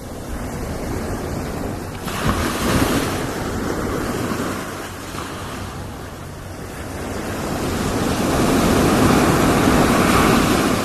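Ocean surf: waves breaking and washing in, one surge about two seconds in and a longer, louder one building from about seven seconds in and fading near the end.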